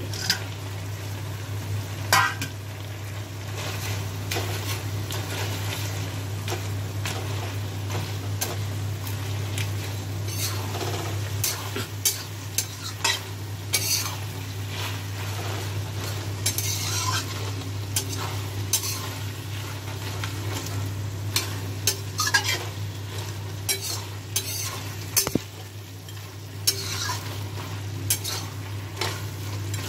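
A spatula scraping and clacking against a metal wok (kadai) as Malabar spinach curry with fried fish heads is stirred, the food sizzling quietly underneath. Irregular sharp clicks and scrapes come every second or so over a steady low hum.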